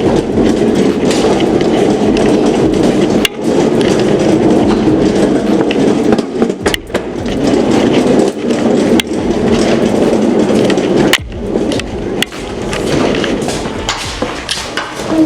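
Small loaded flatbed cart's wheels rolling over a hard floor, a steady rumbling rattle broken by a few sharp knocks.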